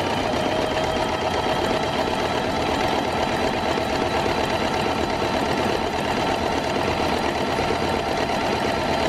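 Janome electric sewing machine running steadily at speed, sewing a buttonhole with its buttonhole foot: a fast, even stitching rattle.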